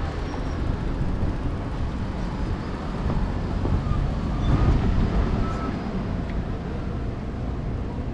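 Wind rumbling on the microphone of a bike-mounted GoPro while riding along a road, mixed with general street and traffic noise.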